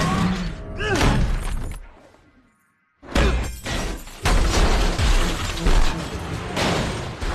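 Film sound mix of a car crash: high screeches and crashing fade into a brief total silence, then a sudden loud impact about three seconds in, followed by metal grinding along asphalt, shattering glass and an overturning car crashing, with music underneath.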